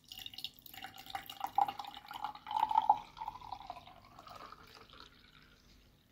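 Peach iced tea poured from an aluminium can into a ceramic mug, the liquid splashing into the mug as it fills. The pour is loudest in the middle and trails off to a thin trickle near the end.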